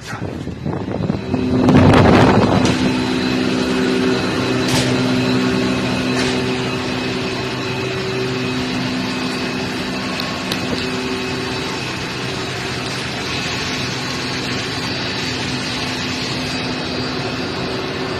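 Engine-room machinery running, a steady hum with several held tones over a noisy wash. It swells to its loudest about two seconds in, then settles to an even drone.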